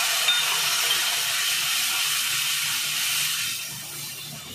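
Onion-tomato masala frying in hot oil hisses and sizzles loudly as a little water is added and stirred in. The hiss eases off about three and a half seconds in.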